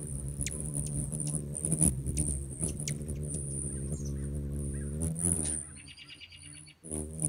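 Hummingbird wings humming close up as the birds hover at the feeder, a steady low buzz with scattered short chips and clicks. The hum drops away a little before six seconds in, when the birds settle, and a quick run of high twittering chirps follows.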